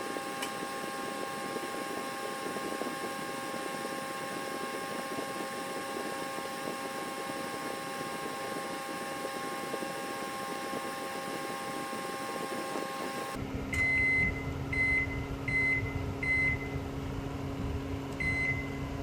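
Microwave oven running while heating, with a steady hum from the magnetron and its repaired cooling fan. About thirteen seconds in, the sound changes to a lower, steadier fan hum, and the oven beeps four times, then once more near the end. The cooling fan keeps running after the heating cycle has ended.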